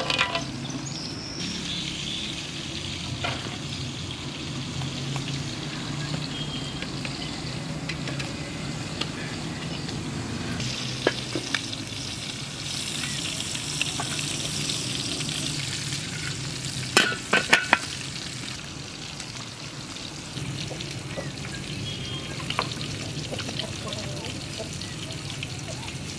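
Steady sizzling and bubbling of a pot boiling over a wood campfire, with the fire crackling. A quick run of sharp clicks comes about 17 seconds in.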